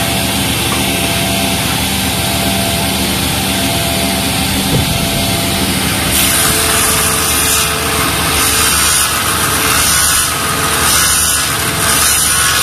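Table saw running steadily as its circular blade trims the edge of an MDF disc turned against it. About six seconds in, a harsher, hissier cutting sound joins the motor hum and rises and falls as the disc is fed.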